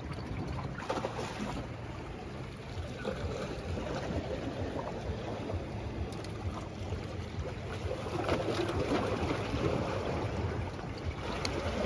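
Small waves lapping and splashing against the rocks of a breakwater on a calm sea, a little louder for a couple of seconds late on, over a steady low rumble of wind on the microphone.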